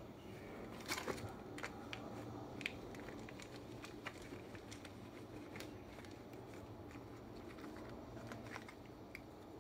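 Faint handling sounds of a leather handbag and a small cotton drawstring pouch: soft rustling with scattered light clicks and taps, the sharpest a couple about a second in and one near three seconds, as the pouch is untied and the lock drawn out.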